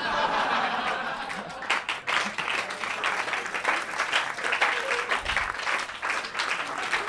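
Comedy audience applauding a punchline, many hands clapping at once.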